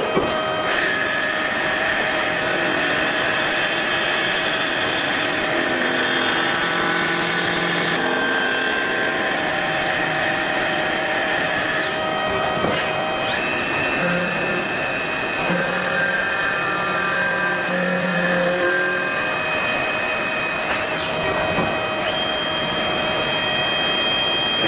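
Haas ST30 CNC lathe machining: a steady high-pitched whine over machining noise that stops abruptly about halfway through, resumes a second or so later, and stops again near the end before the machine settles into a different steady tone.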